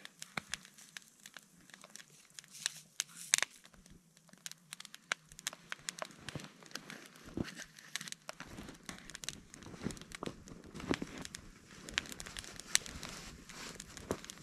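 Burning wood in split-log fires crackling, with irregular sharp pops. From about eight seconds in, a low rustling and crunching of movement in the snow joins them.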